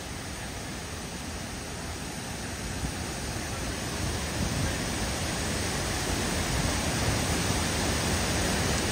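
Waterfall pouring down a cliff into a rock pool: a steady rush of falling water, growing louder about four seconds in.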